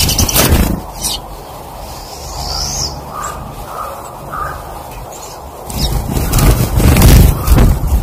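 Pine siskins at a tube seed feeder: a brief flurry of fluttering wings close to the microphone at the start and a longer, louder one for about two seconds near the end. In between come one rising high call and a few faint short chirps.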